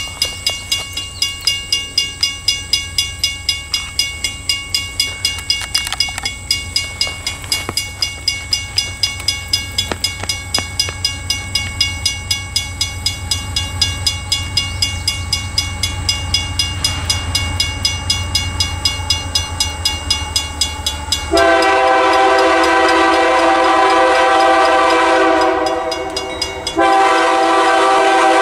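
Railroad Supply Co. (RRS) mechanical crossing bell striking steadily at about three and a half strikes a second, with a somewhat flat, rough ring. About three-quarters of the way through, the approaching train's multi-tone air horn comes in much louder, two long blasts with a short break between them, drowning out the bell.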